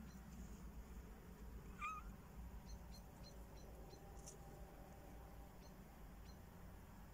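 A cat gives one short, faint meow about two seconds in, over quiet room tone. A run of faint high ticks follows.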